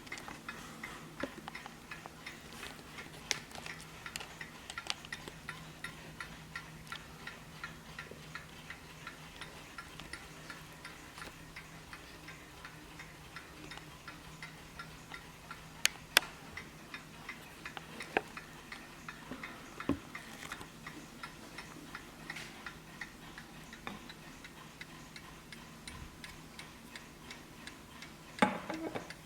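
Vintage Hermle 8-day skeleton mantel clock movement ticking steadily, with a few louder clicks and a brief thump near the end.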